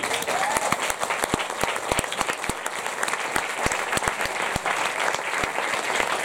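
Audience applauding: many hands clapping densely together.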